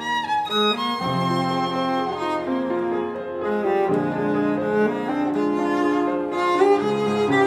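String quartet (two violins, viola and cello) with piano playing an instrumental arrangement of an anime song: sustained bowed chords that change about once a second under a violin melody, with a quick rising run near the start.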